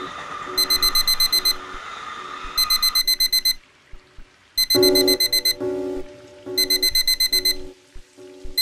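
Digital alarm clock beeping: groups of about eight quick high-pitched beeps, each group just under a second long, repeating every two seconds.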